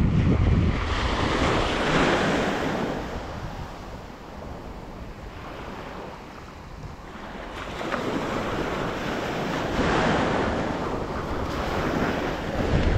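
Surf washing up the beach, loud at first, easing off, then building again about eight seconds in, with wind buffeting the microphone as a low rumble.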